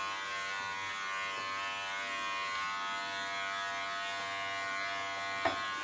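Wahl Bravura cordless pet clippers running steadily with an even electric hum as they cut through a puppy's fluffy coat, with one short click near the end.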